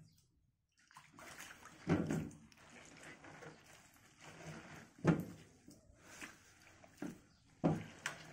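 Hands washing and squeezing mustard greens in a shallow metal tray of water: soft sloshing and rustling of wet leaves, with three louder splashes about two, five and nearly eight seconds in. This is the rinse of the greens before they are salted for pickling.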